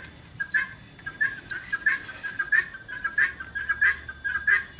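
A bird calling in a rapid series of short chirps, about three or four a second.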